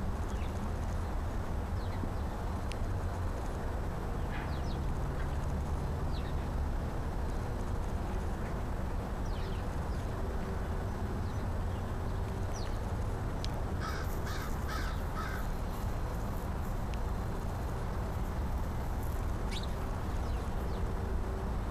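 American crow cawing, a quick run of about four caws about two-thirds of the way through, over a steady low background rumble.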